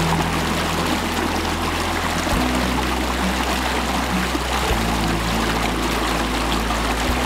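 Small rocky mountain stream rushing and splashing over rocks in a steady wash. Under it runs soft background music of held low notes that change every couple of seconds.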